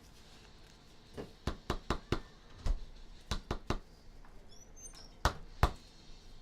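Cards and plastic card holders handled on a table: a string of sharp clicks and taps in small clusters, the two loudest a little past five seconds in.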